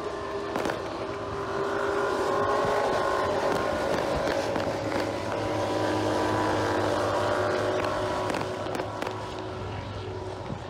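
Several MotoGP racing motorcycles passing at low speed, their engines running steadily. The sound swells a couple of seconds in and eases off near the end.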